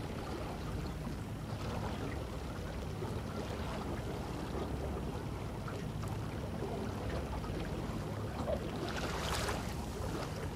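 Water washing and splashing along the hull of a small wooden sailboat under way, with wind rumbling on the microphone. A louder rush of water about nine seconds in.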